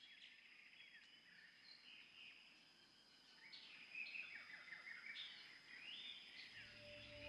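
Faint birdsong: many short, quick chirps and trills from small birds, with a thin steady high tone behind them. Low music comes in near the end.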